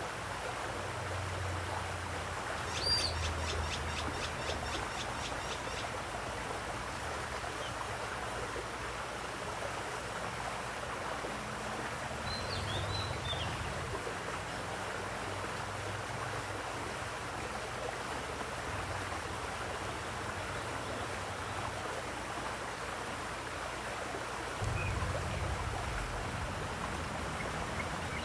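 Steady rush of flowing water with birdsong: a quick run of high chirps about three seconds in and a few short calls near the middle.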